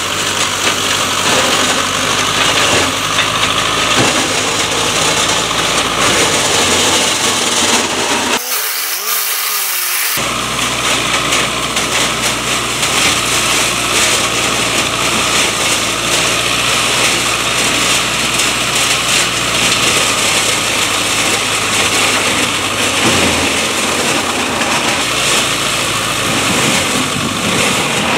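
LTZ T40 tractor's air-cooled diesel engine running under load while its tractor-driven flail mulcher shreds bushes: a steady, loud mechanical din over a low engine hum. About eight seconds in, the low engine sound drops out for about two seconds, leaving only a thin hiss.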